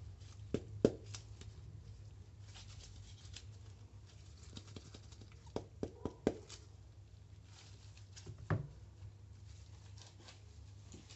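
Gloved hands handling a dry, hard compressed sponge in a plastic tub: a few sharp taps and knocks, the loudest near the start and a cluster of three about six seconds in, between quiet scratchy rubbing of fingers over the sponge's dry surface. A low steady hum lies underneath.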